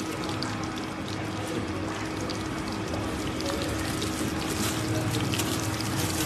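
Dried snakehead fish frying in a pan of oil, the oil sizzling and crackling with many small pops while it is still coming up to heat. A steady hum runs underneath.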